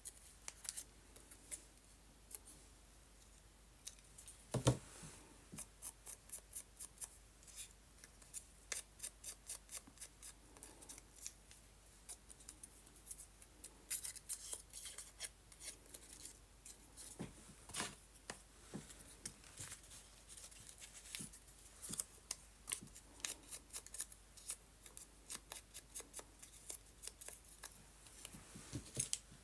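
Small scissors snipping paper, many short quick snips in runs, with one louder thump a little over four seconds in.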